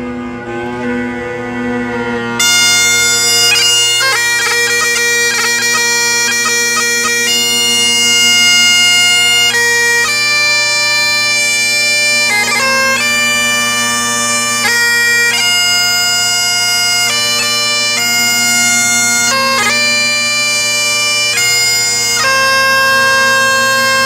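Great Highland bagpipe: the drones sound alone at first, then about two seconds in the chanter comes in and plays a melody ornamented with quick grace notes over the steady drone.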